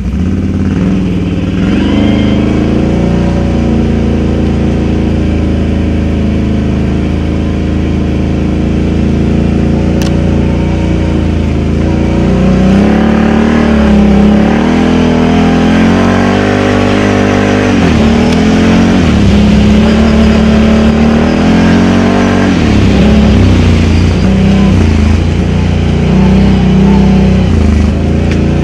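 Can-Am Outlander XMR 1000 ATV's Rotax V-twin engine with dual slip-on exhausts, running under throttle on the move; the engine pitch rises and falls again and again as it is revved and let off. A single sharp click about ten seconds in.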